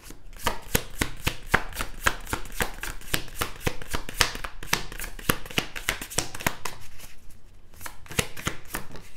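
A tarot deck being shuffled by hand: a quick run of crisp card slaps and flicks, several a second, with a short lull about seven seconds in.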